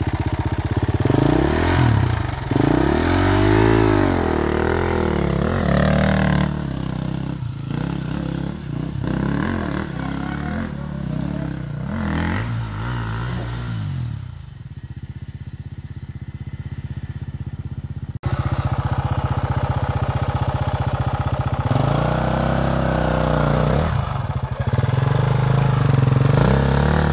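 Dirt bike engine revving hard, its pitch rising and falling over and over as the throttle is worked. About two-thirds of the way through it cuts abruptly to another stretch of the engine running and revving.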